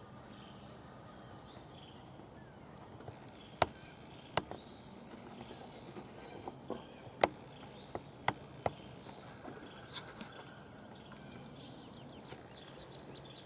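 Faint outdoor ambience with a handful of sharp, short clicks and taps in the middle stretch, the loudest a second or so apart.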